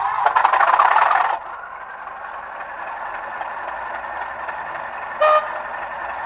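A Bachmann Class 37 model's factory sound decoder plays an English Electric diesel engine through the model's small speakers: rising in pitch with a buzzing rattle for the first second and a half, then running steadier and quieter, with a short horn toot about five seconds in. The rattle comes from loose parts in the model, a loose circuit board and a loose fan, shaking with the speaker output.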